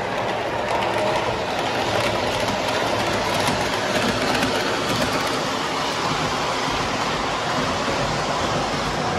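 MTH O gauge model R188 subway train running along three-rail track: a steady noise of wheels and motors with faint clicks over the rail joints.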